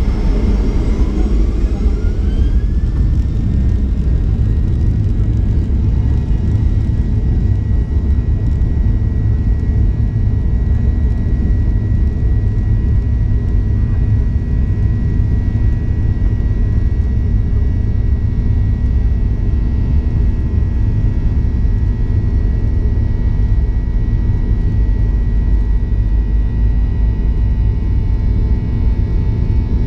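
Boeing 737-800's CFM56 jet engines heard from inside the cabin over a loud, steady low rumble. A whine climbs in pitch a second or two in as the engines spool up, then holds steady while the jet rolls slowly along the runway.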